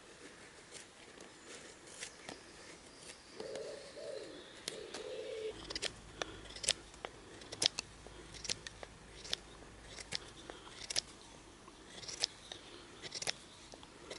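Bushcraft knife blade shaving curls off a dry wooden stick to make a feather stick: a run of short, sharp scraping strokes, one or two a second. A short low call sounds about four seconds in.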